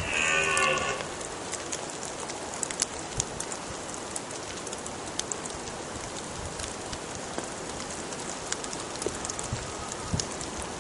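Steady rain falling on woodland, with scattered individual drops ticking. During about the first second a brief pitched sound with several tones rises above it.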